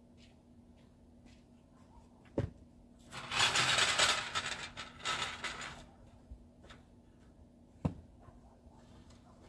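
Snow shovel blade scraping over snow-covered pavement for about three seconds, with a sharp knock just before it and another a couple of seconds after.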